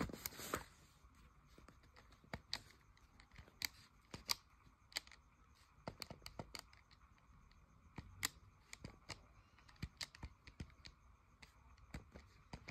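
Keys of a handheld scientific calculator being pressed one after another, a string of light, irregular plastic clicks. A brief rustle at the start.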